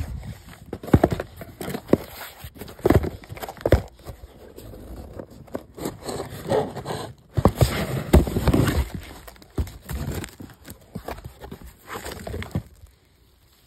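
Plastic packaging rustling and crinkling by hand, with irregular knocks and scrapes, as a potted plant is unwrapped; the noise stops near the end.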